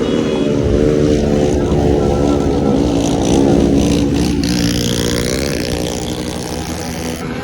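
Traffic: motor vehicle engines running close by, their pitch slowly rising and falling.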